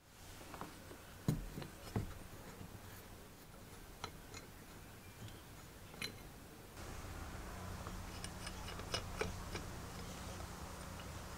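Light metal clicks and taps from a vintage Leytool Major egg-beater hand drill being handled and taken apart, with two sharper clicks about a second and two seconds in.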